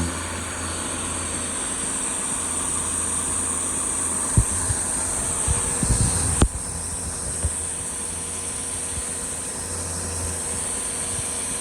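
Small gas pressure washer running steadily, with its spray hissing. A few knocks come around the middle, the sharpest about six and a half seconds in, after which the hiss eases somewhat.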